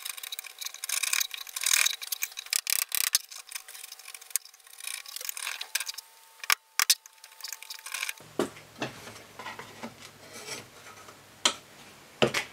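Wood chisel paring out a small mortise by hand: quick rasping, scraping strokes for the first few seconds, then scattered sharp clicks and taps of the chisel in the wood.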